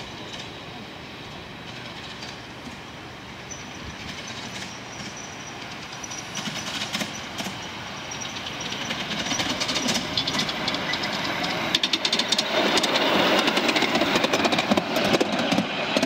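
Miniature 5-inch-gauge steam locomotive running on a raised track, growing steadily louder as it comes closer. About three-quarters of the way in it turns much louder and close, with rapid clicking.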